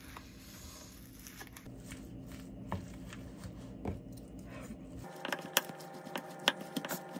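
A wooden spoon mixing bibimbap in a bowl: soft scrapes and clicks of the spoon against the bowl and food, over a low steady hum for about five seconds, then busier and louder with many quick clicks and scrapes near the end.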